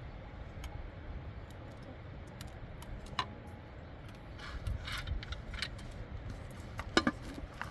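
Scattered light clinks and knocks of small hard objects being handled, the sharpest about three seconds in and again near the end, over a steady low rumble.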